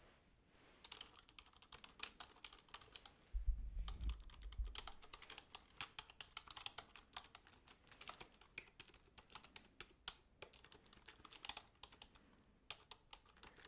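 Typing on a computer keyboard in irregular runs of quiet clicks, with a low rumbling thump about three and a half seconds in that lasts a little over a second.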